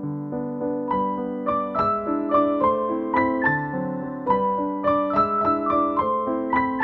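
Background music: a gentle piano or electric-piano melody with a bass line, notes moving quicker from about a second in.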